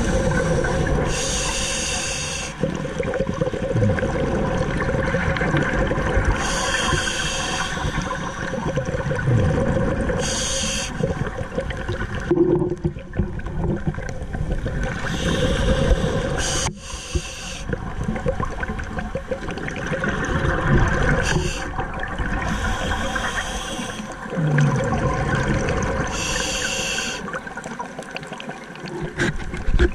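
Scuba diver breathing through a regulator underwater: a hiss on each inhale and a rush of exhaled bubbles, repeating about every four to five seconds.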